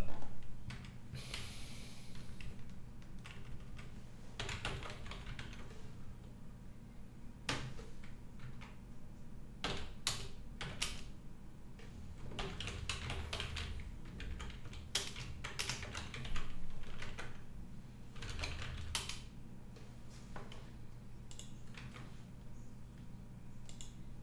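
Typing on a computer keyboard: irregular bursts of keystrokes with pauses between them, over a low, steady hum.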